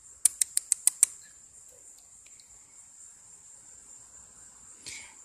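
A quick run of six sharp clicks in the first second, followed by a steady high-pitched buzz of crickets.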